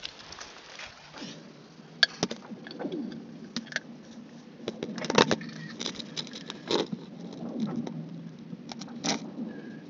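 Lake ice on a frozen lake cracking and booming from under the surface. Sharp cracks come at irregular intervals, the loudest about two and five seconds in, and several are followed by quick whooping tones that fall in pitch. This is the sound of a frozen lake's ice sheet cracking under stress.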